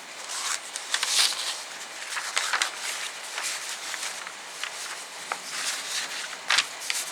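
Paper rustling and crinkling as the pages of a plastic model kit's instruction booklet are handled and turned, in irregular bursts, loudest about a second in and again near the end.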